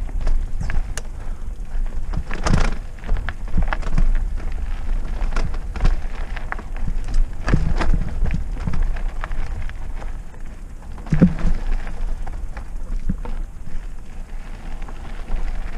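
Trek Roscoe 6 hardtail mountain bike riding down a dirt and rock trail: tyres crunching over the ground with frequent rattles and knocks from the bike, the hardest about two and a half seconds in and again about eleven seconds in. Under it runs a steady low rumble of wind on the camera's microphone.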